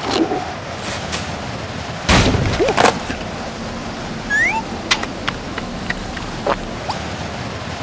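Cartoon sound effects: a loud crash about two seconds in as the wooden plank splits, followed by a short rising squeak and a few light clicks.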